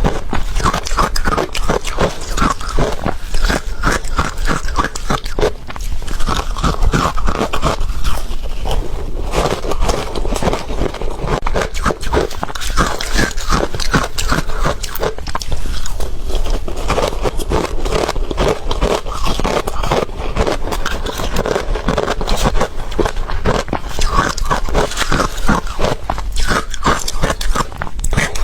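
Close-miked ice being bitten and chewed, a dense, fast run of crisp crunches that keeps going throughout.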